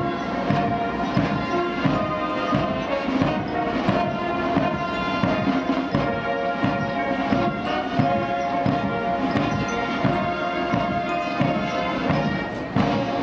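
Band music with many sustained pitched parts over a steady drum beat, about two beats a second.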